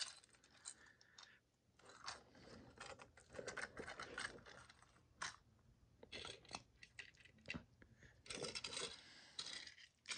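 Plarail James toy engine, tender and car handled and set down on carpet: quiet, irregular clicks, taps and scrapes of hard plastic.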